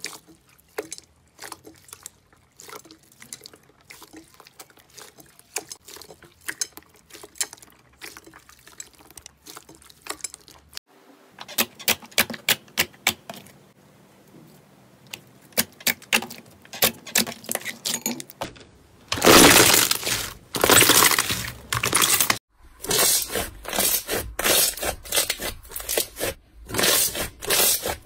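Slime being squeezed, kneaded and stretched by hand, making wet clicks and squelches. The clicks are short and sharp at first; in the last third come louder, longer squishing runs.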